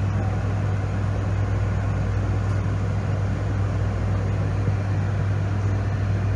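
Schutte 305 Linear CNC tool and cutter grinder running: a steady low hum under an even hiss, as the grinding wheel works a tool in a spray of coolant mist.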